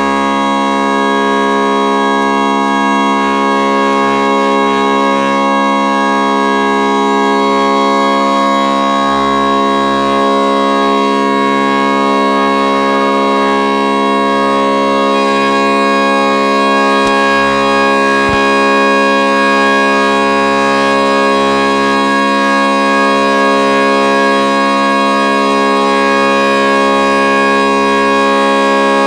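Midmer-Losh pipe organ mixture stop sounding one held low C-sharp: many ranks of metal flue pipes sounding together as one steady, loud chord-like tone. Higher pitches join partway through as the ranks are unmuted one at a time during tuning, with a couple of faint clicks.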